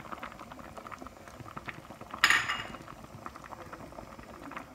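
Pot of soup bubbling at a simmer, with fine popping throughout, and one sharp clink of a metal spoon against the pot about two seconds in.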